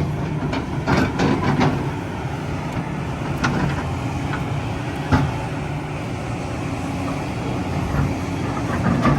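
Kobelco 380 hydraulic excavator's diesel engine running steadily, with a few sharp knocks about a second in and again a few seconds later.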